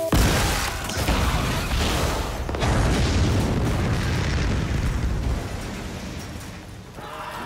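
Film-soundtrack explosion: a sudden loud blast, a further burst about two and a half seconds in, then a heavy low rumble that dies away after about five seconds.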